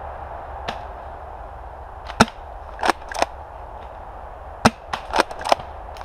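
Airsoft guns firing: a string of about eight sharp snapping shots, irregularly spaced, the last few coming in quick succession.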